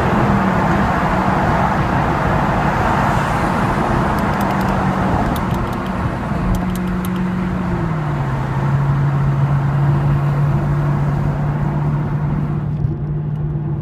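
A car driving at speed, heard from inside: steady engine and road noise. The engine note steps down in pitch about eight seconds in, then holds steady.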